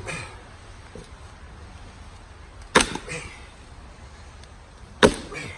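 Stihl MS291 chainsaw's recoil starter rope yanked twice, about two and a half seconds apart, each pull a sharp rip that trails off; the engine does not catch. The saw is hard to start and won't stay running, which the owner takes as needing a service.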